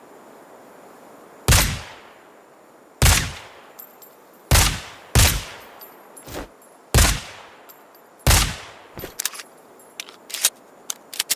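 Suppressed Desert Eagle pistol firing six shots, spaced roughly one to two seconds apart, each a sharp report with a short fading tail. A quick run of lighter clicks follows near the end.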